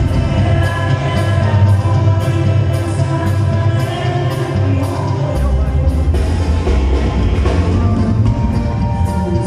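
Live band music: a man singing into a microphone over drums and a strong bass, with a steady beat of about two to three drum hits a second.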